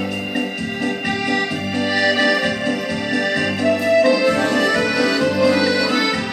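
Piano accordion playing a tune: sustained treble chords and melody over a regular pulsing bass accompaniment.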